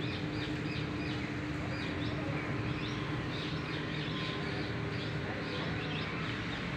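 Small birds chirping repeatedly in short high calls, over a steady low hum.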